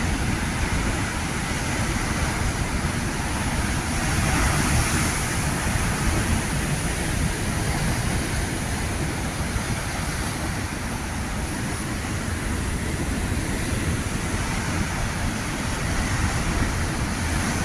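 Big ocean waves crashing and churning in a steady roar that swells a little about four seconds in, with wind rumbling on the microphone.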